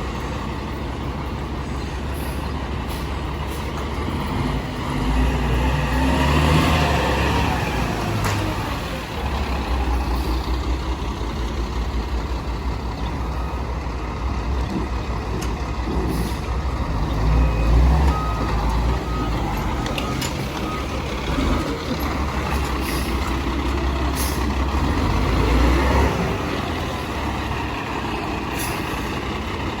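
Fire engine's diesel engine running and revving up several times as the truck manoeuvres, with short air-brake hisses and reversing beeps.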